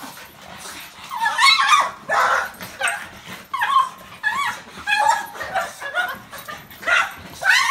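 Several excited dogs whining and yipping in greeting, short high cries that rise and fall in quick succession.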